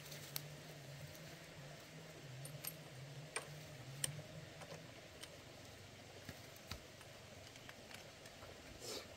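Scattered light clicks and taps, like small hard parts being handled, with a faint low hum that fades about halfway through.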